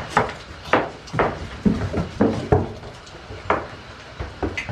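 Irregular sharp knocks and thumps on wood, about ten of them, from goats jostling against the boards and posts of a wooden pen.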